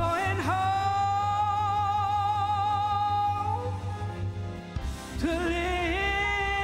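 A woman singing solo into a microphone, holding one long note with a slight waver for about three seconds, then starting another long held note about five seconds in. A low sustained accompaniment plays underneath.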